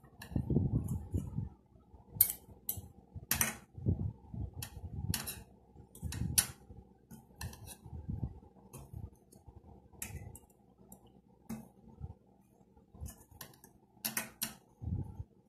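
Metal spoon and fork clinking against ceramic dishes, a dozen or so sharp clinks at uneven intervals, with dull low bumps between them.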